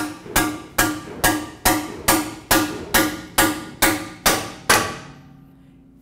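Hammer striking a bearing driver to seat a new rear axle bearing in the truck's axle tube: about a dozen ringing blows at an even pace of roughly two a second, stopping about five seconds in. The blows go from a tap to a bonk once the bearing bottoms out against the tube.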